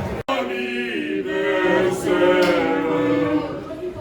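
After a sudden cut, several voices sing in harmony without accompaniment, holding long notes.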